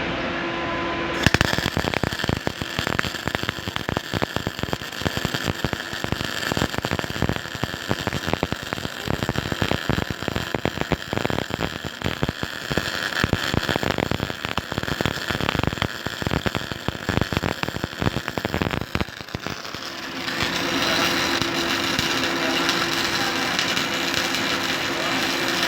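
MIG welding arc with CO2 shielding gas, crackling and spitting fast and unevenly. It starts about a second in and stops a few seconds before the end, leaving a steady machine hum.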